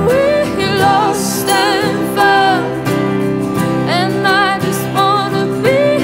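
Background music: a song with a wavering melody line over held chords.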